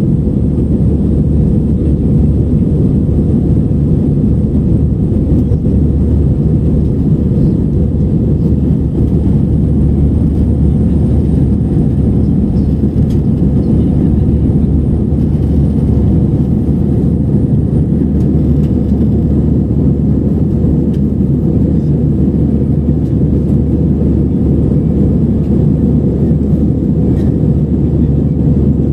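Steady low rumble of an Airbus A320-family airliner's jet engines and airflow, heard inside the passenger cabin in flight.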